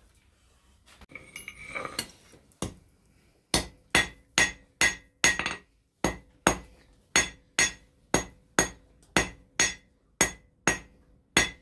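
Blacksmith's hammer striking metal on an anvil, a steady run of blows about two a second, each leaving a bright metallic ring. A couple of lighter knocks come first.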